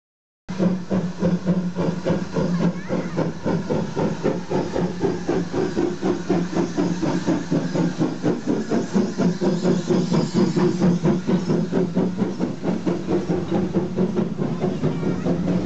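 Steam tank locomotive working a train, chuffing in an even rhythm of exhaust beats with steam hissing. It starts abruptly about half a second in.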